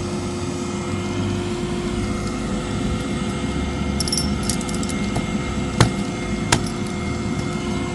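Henry vacuum cleaner motor running with a steady hum, with two sharp knocks near the end.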